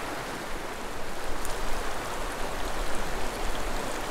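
Small mountain stream flowing over rocks: a steady rush of water.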